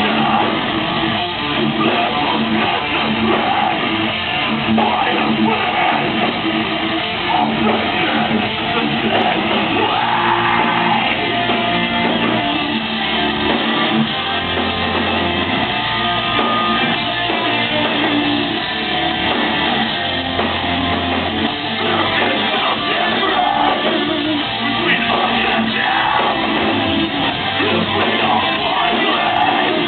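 Metalcore band playing live at full volume: distorted electric guitars, bass and drums, with long held low bass notes in the second half.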